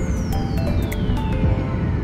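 Electronic background music over a low rumble, with a long falling sweep sliding steadily down in pitch.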